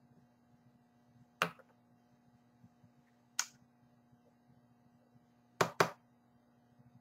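Sharp clicks of makeup items being handled: a single click, another about two seconds later, then a quick pair near the end, over a low steady room hum.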